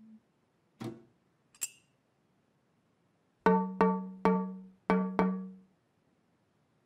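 A soft thump and a sharp click, then five resonant, pitched knocks on a metal bread bin drummed by hand, three then two in a short rhythm, each ringing briefly.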